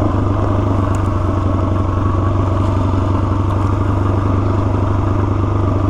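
Suzuki DR-Z400S single-cylinder four-stroke engine running at a steady, even pitch while the bike is ridden along.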